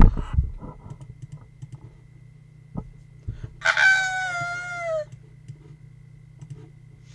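A single drawn-out crowing call like a rooster's, about a second and a half long and falling slightly in pitch, about halfway through, over a faint steady hum.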